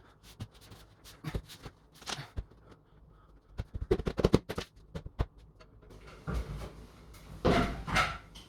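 Work noises from handling tools and materials: scattered clicks and knocks, a quick run of taps about four seconds in, then a louder scraping rustle near the end.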